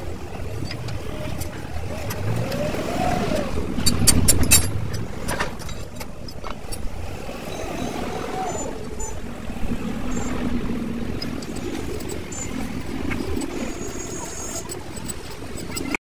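A motor vehicle engine running steadily close by, twice rising and falling in pitch, with a few sharp metallic clinks from hand tools about four to five seconds in.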